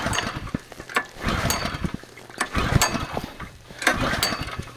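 Recoil starter of a small Chinese petrol fire-pump engine being pulled repeatedly, about four pulls in a row, the engine turning over on each pull but not catching.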